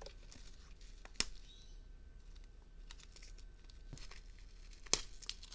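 Faint rustling as a MOLLE-compatible multi-tool sheath is handled, with two sharp clicks, one about a second in and one near the end.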